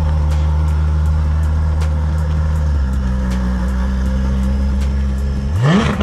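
Ferrari F12 TDF's V12 running at low revs as the car pulls away, then a quick rev rising sharply just before the end.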